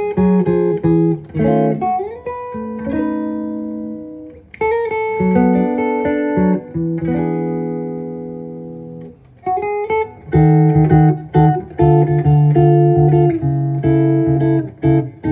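1966 Gibson ES-175 hollow-body archtop electric guitar being played. It plays chords and short runs with a note sliding upward about two seconds in, then chords left to ring and fade, and a steady rhythm of chords through the second half.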